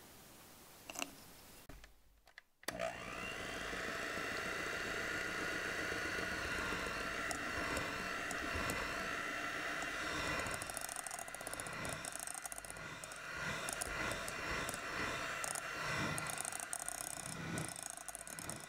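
Electric hand mixer switched on about three seconds in, its motor whirring up to speed and running steadily as the wire beaters whisk cream into cheesecake batter in a bowl. From about halfway the beaters churn and knock unevenly through the thickening batter.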